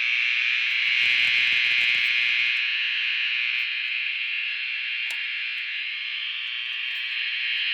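Fire alarm notification appliances on a demonstration board sounding continuously during a system test: a loud, steady, high-pitched buzzing alarm tone. A brief low rattle comes through about a second in.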